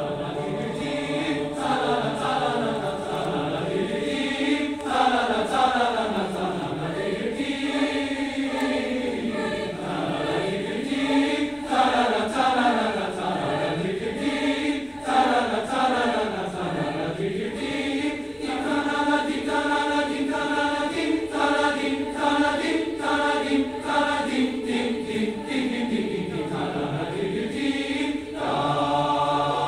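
Large mixed high-school choir singing, its voices swooping down and back up every couple of seconds over a held note. From a little past halfway the singing breaks into short, rhythmically repeated notes, and a held chord returns near the end.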